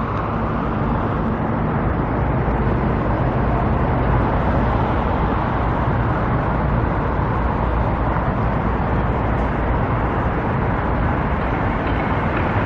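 Steady road traffic noise, with a low engine hum in the first few seconds.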